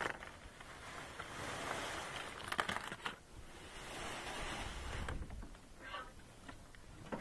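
Water washing around a small aluminum boat's hull as it moves out from shore, rising and falling in two long swells, with a few light knocks in the middle.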